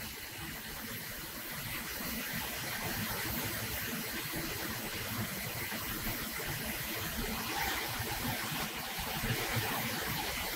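Steady rushing background noise, like running water or a hiss, with no distinct events in it.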